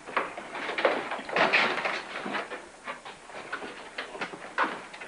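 A front door being opened and shut, with footsteps on a hard floor and shopping bags rustling.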